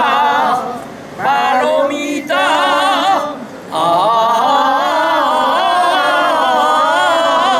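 Three older men singing a jota together, unaccompanied: long, wavering held notes, broken briefly about a second in and again just after three seconds, then one long held phrase.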